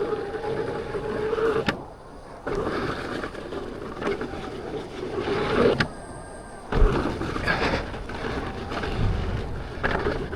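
Electric unicycle running: a steady motor whine for about the first two seconds, then uneven rolling noise with several sharp knocks.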